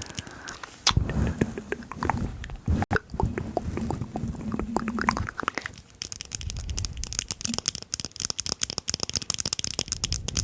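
Stomach growling: a low gurgling rumble with many small pops and clicks for about five seconds. After that comes a scratchy, hissing rustle full of tiny clicks.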